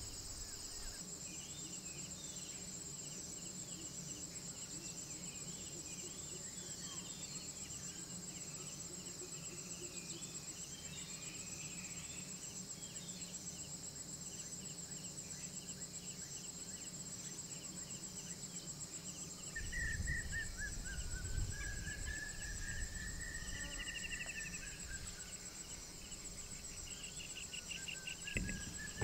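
Steady high-pitched chorus of forest insects with scattered bird chirps. About two-thirds in a long wavering whistled call joins it over a low rumble, and there is a bump near the end.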